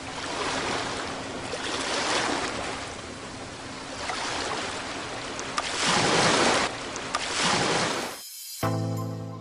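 Ocean surf: a wide hiss of waves that swells and falls back several times, then cuts off suddenly near the end as music begins.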